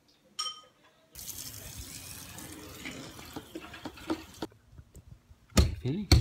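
Water running from a garden hose and splashing onto a car wheel and into a bucket for about three seconds. Near the end, loud sharp knocks of a hammer against a wall begin.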